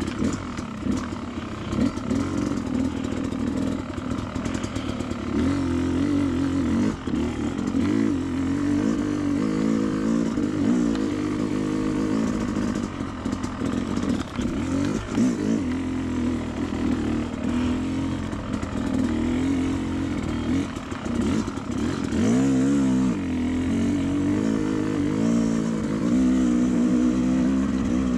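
Two-stroke dirt bike engine running on a trail ride, its revs rising and falling over and over with the throttle.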